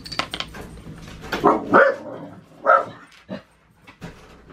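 A dog barking several times in quick succession, starting about a second in, after a few light clicks at the start.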